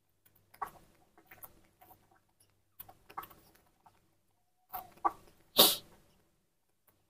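Baby monkey's short squeaks and chirps among scuffling handling noises, with one louder, harsh burst about two-thirds of the way through.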